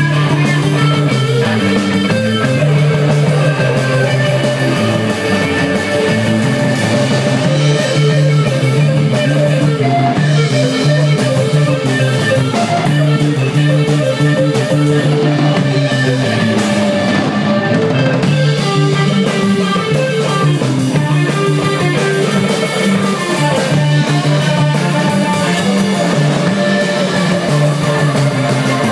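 Live band playing loud, continuous rock music: guitar over a drum kit with cymbals and a moving bass line.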